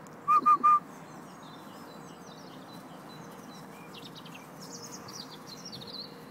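Three short, loud, high-pitched pips in quick succession under a second in. After them, birds chirp and trill over a steady outdoor background hiss.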